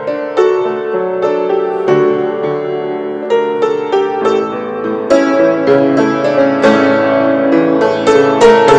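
Solo grand piano playing a slow hymn arrangement, the playing growing fuller and louder about five seconds in.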